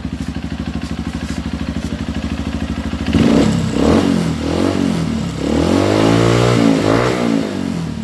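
Honda CRF150L single-cylinder engine, breathing through an aftermarket racing exhaust, idling with an even beat, then revved: two short blips about three and four seconds in, followed by a longer rev that rises and falls back toward idle.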